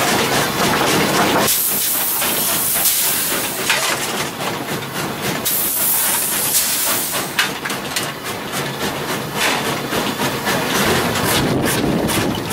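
Inside a steam locomotive's cab: steam hissing in two long bursts of about two seconds each, over a continuous running noise. Scattered clanks and scrapes come from coal being shovelled into the open firebox.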